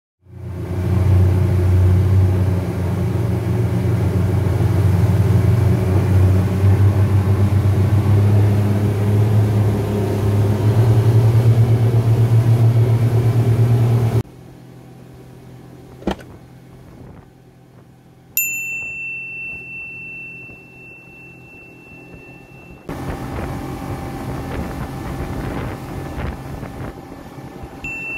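Speed boat's outboard engine running at speed, a loud steady low drone with pulsing. About halfway through it cuts off suddenly to a quieter passage with a single click and then a clear high ringing tone that fades slowly; near the end the boat's running sound returns, quieter.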